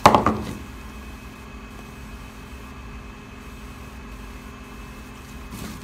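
A brief loud handling noise right at the start as the epoxy-soaked paper towel and fibreglass boat are handled, then a steady low machine hum with a faint constant tone.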